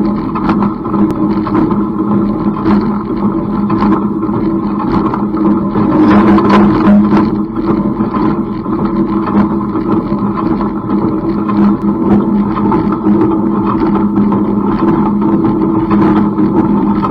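Tractor engine running steadily while pulling an International Harvester 47 wire baler through the windrows of alfalfa hay. The baler's mechanism clatters over the engine with frequent irregular knocks.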